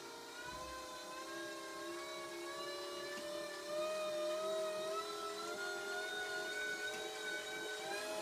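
Pedal-driven generator whining as it is pedalled harder. Its pitch climbs just before and holds fairly steady after, while the sound grows louder and its electrical output rises, lighting more bulbs on the load panel.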